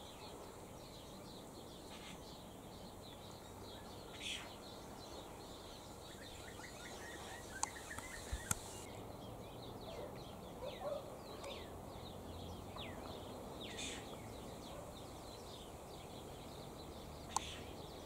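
Faint background of many small birds chirping, with short high chirps scattered throughout. A few sharp clicks come about halfway through and near the end.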